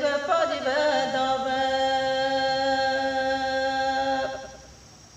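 A woman singing a Galo folk chant unaccompanied: a short wavering phrase, then one long held note that ends about four seconds in.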